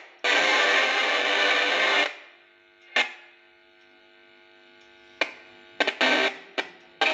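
Music from a TV speaker coming through the audio amplifier, loud and distorted for about two seconds, then dropping to a faint hum. Short crackling bursts follow at about three, five and six seconds, and it comes back loud near the end. The sound cuts in and out as the test point touches the signal path around the audio IC.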